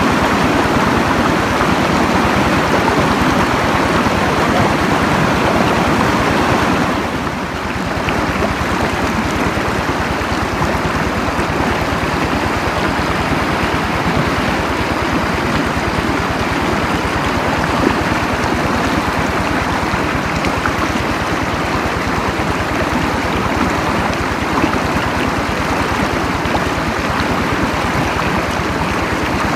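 Stream water rushing steadily, with a brief dip in level about seven seconds in.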